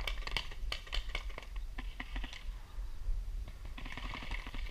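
Scattered sharp pops and clicks of paintball markers firing, most of them in the first two and a half seconds, over a low rumble of wind on the microphone.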